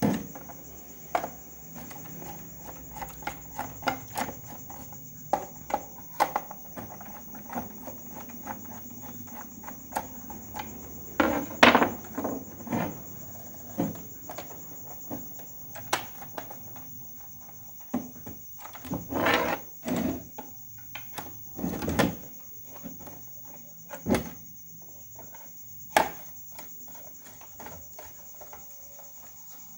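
A screwdriver working the screws of a plastic portable radio's case and the radio being handled and set down on a wooden bench: scattered clicks, scrapes and knocks, loudest in three clusters around the middle. A steady high cricket chirr runs underneath.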